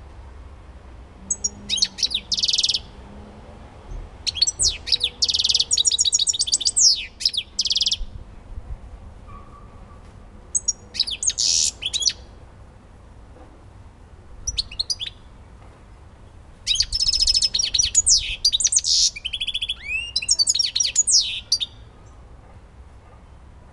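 European goldfinch singing: five bursts of rapid, high twittering and trills, the longest near the end, with pauses of a few seconds between them.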